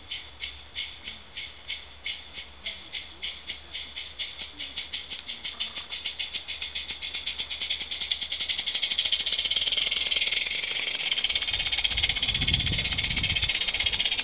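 Gas-fired Mamod live-steam locomotive in 16mm garden-railway scale, its exhaust beating through a Summerlands Chuffer chuff pipe. The chuffs come about three a second at first and quicken as the engine gathers speed, until they run together into one continuous sound. A low rumble comes in near the end.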